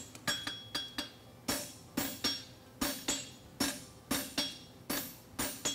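Hand hammer striking a red-hot bar of 5/8-inch square steel on an anvil, about three blows a second, each with a bright metallic ring. This is a farrier forging a horseshoe, working the bar in a single heat.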